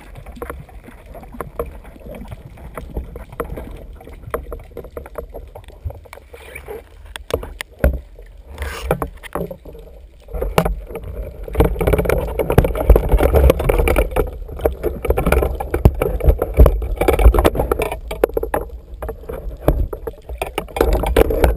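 Water sloshing and splashing around a GoPro camera in its waterproof housing, with many short knocks and clicks, getting louder about halfway through.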